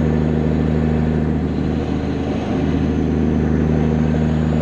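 Diesel dump truck engine running with a steady low drone, broken by a brief dip about halfway through before it picks up again.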